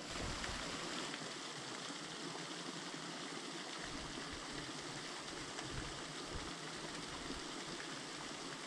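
Running water of a small stream and waterfall over rock: a steady rush, its tone changing slightly about a second in.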